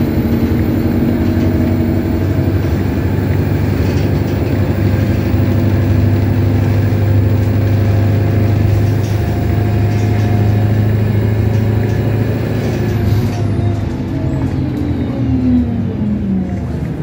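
Bus engine running at high revs, heard from inside the passenger saloon, with a steady low hum and drone. A bit past halfway the engine note falls steadily in pitch as the revs drop away.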